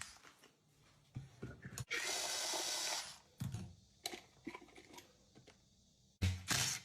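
Small clicks and taps of hand tools and plastic wall-socket parts being handled, with one scraping rustle lasting about a second.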